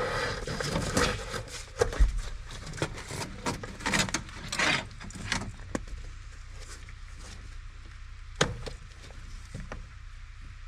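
Clicks, knocks and rattles of hands and a screwdriver working on a truck's hood release cable, taking out its Phillips screws and working the old cable free at the firewall. The handling is busiest for the first six seconds, then goes quieter, with one sharp click about eight seconds in.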